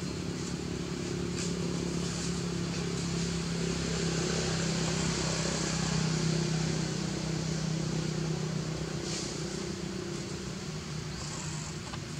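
A steady engine hum with a hiss, swelling to its loudest about halfway through and then fading.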